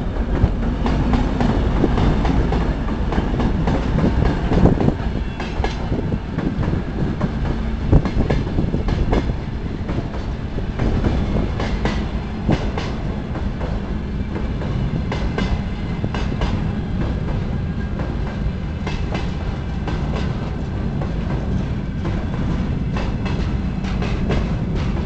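2M62 twin-section diesel locomotive's two-stroke engines running as it passes in the first few seconds, followed by a long freight train of loaded flatcars rolling by. The wheels clack over the rail joints in clusters.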